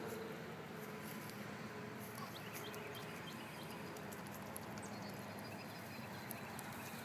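Canada goose grazing at close range, its bill plucking at the grass in faint soft clicks, over a steady outdoor background with a few brief faint chirps near the middle.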